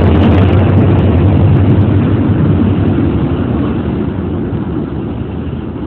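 A train running past close by, a loud rumble that fades away over the last couple of seconds as it moves off.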